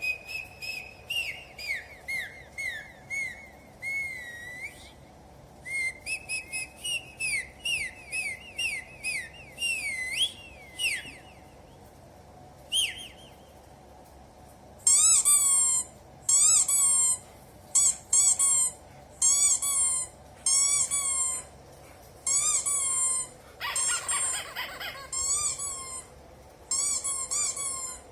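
High whistled notes, warbling and gliding up and down in short phrases, then after a pause a run of loud, sharp chirping calls, each sweeping down in pitch, about one or two a second.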